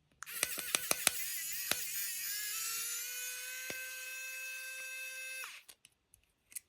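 Small handheld electric screwdriver whirring as it backs out screws. It starts with a few clicks and a wavering pitch, climbs slightly and holds steady for about five seconds, then cuts off.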